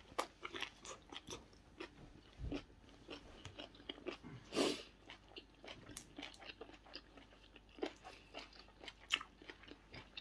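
A person chewing and biting seafood close to the microphone: a steady run of short clicks and crunches, with one louder crunch about four and a half seconds in.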